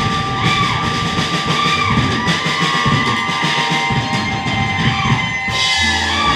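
Live rock band playing through amplifiers: electric guitars over a drum kit, with a high lead line that bends up and back down several times. The drums drop out about five and a half seconds in, leaving held guitar notes.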